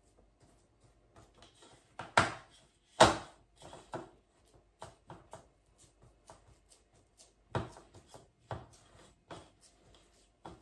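Red spatula pressing and scraping a crushed digestive-biscuit base into a round aluminium cake tin, with irregular knocks against the tin. Two louder knocks come about a second apart, a couple of seconds in.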